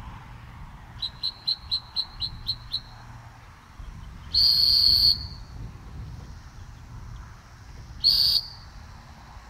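Dog training whistle blown by a retriever handler: a run of eight quick short toots, about four a second, then a long loud blast a couple of seconds later and a shorter blast near the end. The short toots are the handler's signal that the dog is close to the bird; the big blast is his stop signal.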